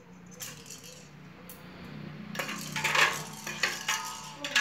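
Metal tongs clinking and clattering against a stainless steel bowl and the plastic rattles in it, a run of clinks starting about halfway through and loudest a little after.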